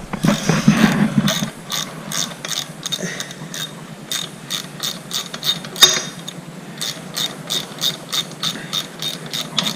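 Hand socket ratchet wrench clicking as a fastener is turned, a series of sharp clicks that settles into about three a second in the second half.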